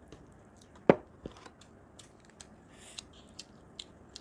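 Sharp clicks and cracks of eating a seafood boil, with one loud crack about a second in, a smaller one just after, then scattered light clicks.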